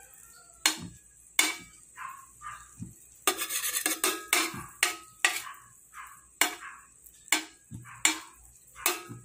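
Metal spoon clinking and scraping against a stainless steel frying pan while pushing a melting knob of margarine around, with a sharp tap about every second and a longer run of scraping about three seconds in.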